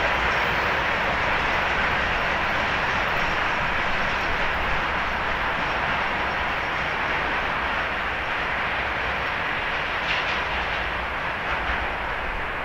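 Loaded freight train rolling away along the track, a steady noise of wheels on rail that fades slowly.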